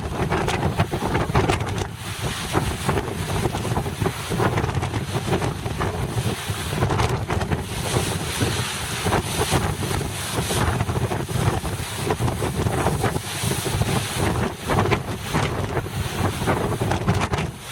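Strong gusty wind buffeting the microphone over a rough sea, with the rush of waves underneath.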